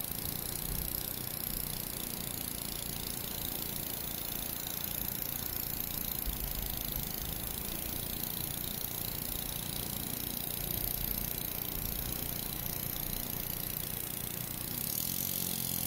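KACIO LS1-14 single-cylinder reciprocating model steam engine running at an even speed: a rapid, steady beat of its piston and valve gear over a constant high hiss.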